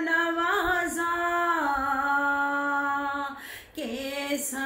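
A woman singing a naat solo without instruments, holding long notes with a few quick ornamented turns in the melody. She breaks off for a short breath about three and a half seconds in.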